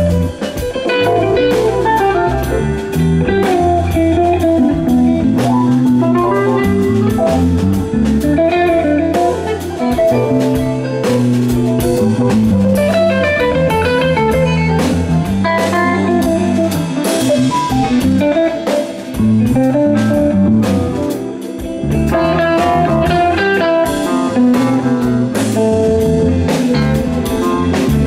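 Live rock band playing an instrumental passage: electric bass, electric guitar lead lines and a drum kit.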